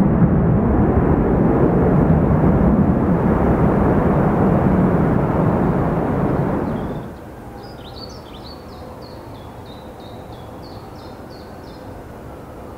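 Four-engine Boeing 747 freighter climbing out at takeoff power, a loud steady jet rumble. It cuts off abruptly about seven seconds in, leaving quieter background noise in which a small bird chirps about ten times in quick succession.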